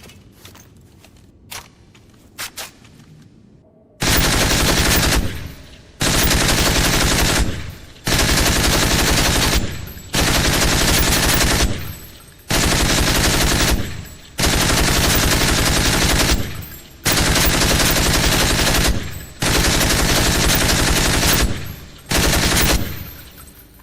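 Automatic gunfire sound effect: nine bursts of rapid fire, each about a second long and ringing out briefly, spaced roughly two seconds apart. A few faint clicks come before the first burst.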